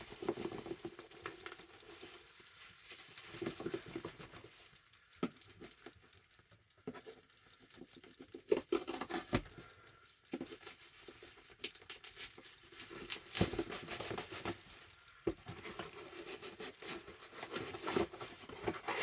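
Plastic bag packaging rustling and crinkling as it is handled and opened, with scattered sharp clicks and snaps.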